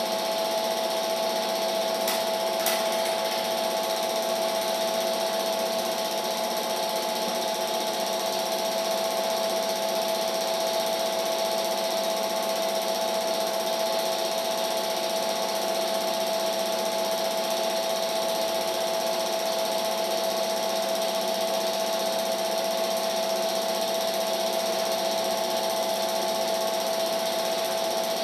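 Steady mechanical whirr of a film projector running, with a constant tone and hiss underneath; two faint clicks about two seconds in.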